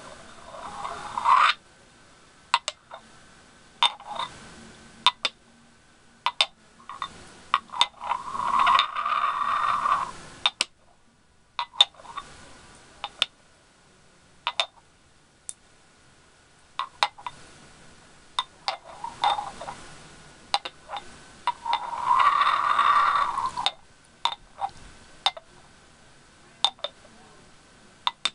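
Two small glass candle jars knocked and rubbed together rim to rim: scattered sharp glass clicks and taps, with several longer gritty scrapes of glass grinding on glass, the loudest about eight to ten seconds in and again a little past twenty seconds.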